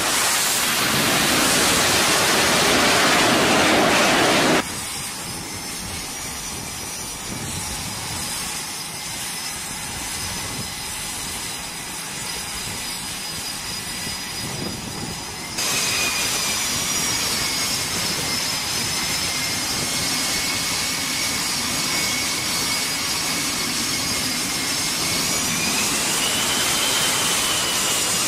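F/A-18 Super Hornet twin jet engines on a carrier flight deck. A very loud jet rush as one lands, then after an abrupt cut a quieter, steady high-pitched turbine whine. After a second cut the whine is louder, and its high tone rises near the end as the engines spool up at the catapult.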